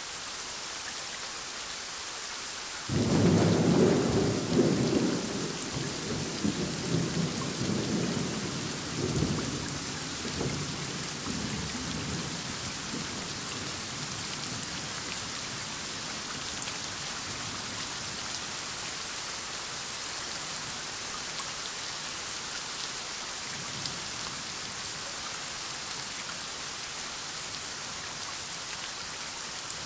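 Steady heavy rain falling, with a close thunderclap breaking in suddenly about three seconds in and rolling on in rumbles that fade away over some ten seconds.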